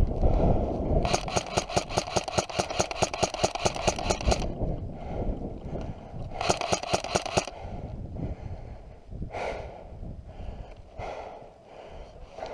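Airsoft electric gun firing on full auto: a long burst of about three seconds, then a short burst of about a second, each a rapid even string of shots.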